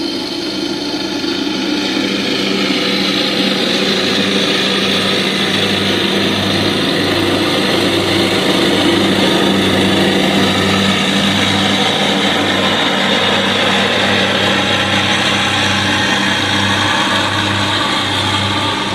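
Lawn mower engine running steadily and loud, growing slightly louder over the first few seconds.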